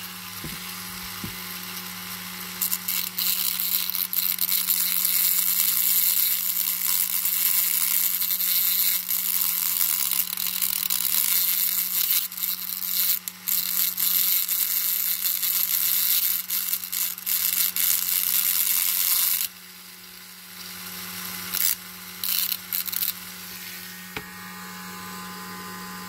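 Small pen-style rotary grinder running with a steady whine, its bit grinding against the end of a metal wheel axle on a diecast model to free the wheels. The harsh grinding noise starts a couple of seconds in and runs for about seventeen seconds, then comes in a few short touches, with the motor left running at the end.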